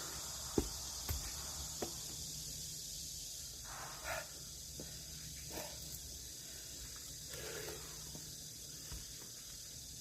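Three light knocks in the first two seconds, as of wood being handled, then a few short breaths or grunts, over a steady high hiss.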